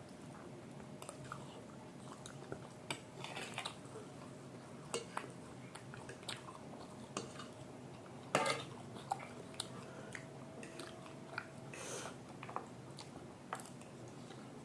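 Chewing of chow mein and momos, with scattered sharp clicks of cutlery against dishes, the loudest about eight seconds in.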